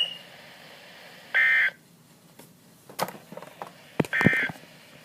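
Emergency Alert System end-of-message data bursts: two short screechy bursts of digital warbling tones about 1.4 s and 4.2 s in, signalling that the alert has ended. A few sharp clicks fall between them.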